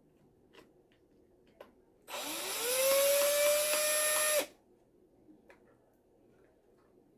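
Cordless drill running for about two seconds: its motor whine rises as it spins up, holds steady, then cuts off suddenly. A few faint clicks from handling come before and after it.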